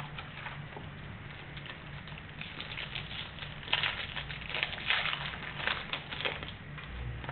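Crinkling and rustling of trading-card packaging being opened and handled, in irregular crackles that get busier about two and a half seconds in. A steady low hum sits underneath.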